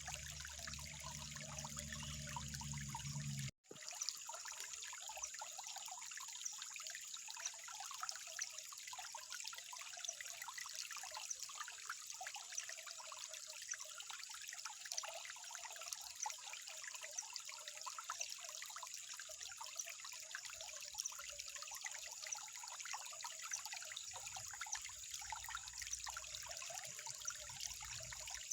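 Water trickling in a small steady flow, full of tiny splashes and drips. The sound cuts out for an instant about three and a half seconds in, then carries on as before.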